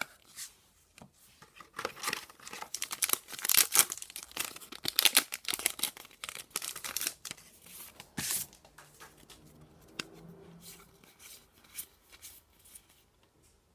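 A foil booster pack being torn open, with the wrapper crinkling in a rapid run of crackles for several seconds. After that there is lighter, sparser handling noise near the end.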